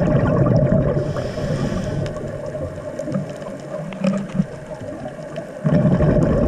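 Underwater sound of a scuba diver breathing through a regulator: exhaled air bubbling and rushing past the camera in two long bursts, one at the start and one again near the end, over a steady hum.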